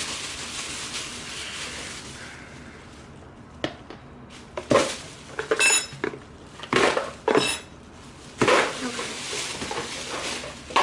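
Clinks and knocks of bowls, utensils and containers being handled and set down, several sharp knocks with two of them ringing briefly like metal or glass.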